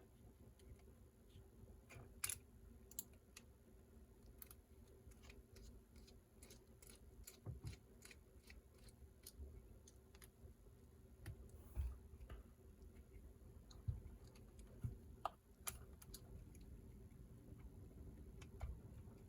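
Faint, scattered small clicks and ticks of a small screwdriver and tiny screws being worked loose from the drive shafts of a mini RC crawler.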